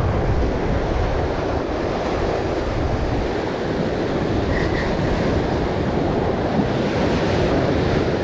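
Ocean surf washing and breaking over lava rocks, a steady rush of whitewater, with wind buffeting the microphone.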